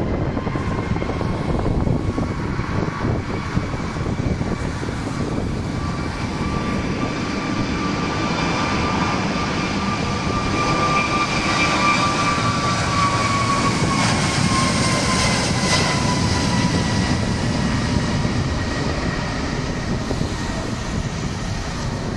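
Airbus A321neo's CFM LEAP-1A turbofans at takeoff power during the takeoff roll: a steady roar with a high whine that climbs a little as the jet draws close and drops in pitch as it passes, about halfway through.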